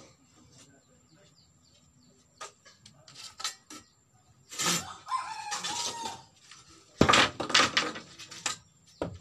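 A bolo knife working bamboo strips. First scattered clicks, then a loud crackling, tearing stretch a few seconds long as a strip splits, and near the end a quick run of sharp knocks and clacks of the blade on the bamboo.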